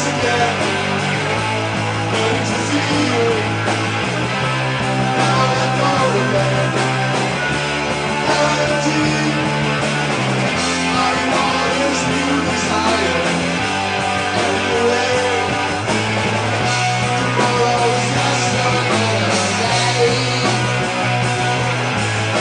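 Live rock band playing: two electric guitars, bass guitar and drums, the bass holding notes that change every couple of seconds.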